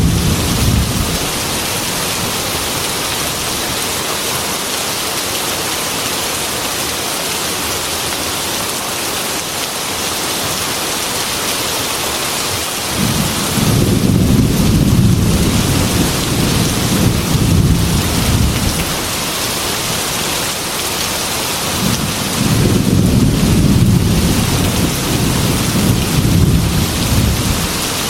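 Heavy rain falling steadily on a glass window, with low rolling thunder: one rumble dies away in the first second, a long one swells about halfway through, and another comes near the end.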